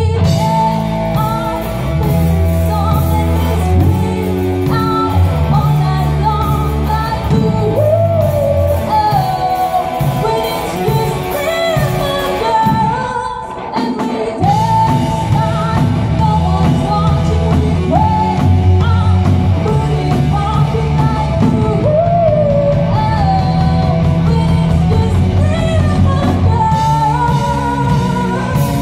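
Live band playing a pop song: a woman sings lead into a microphone over drum kit and electric guitar. The music drops back briefly about halfway through, then comes back in full.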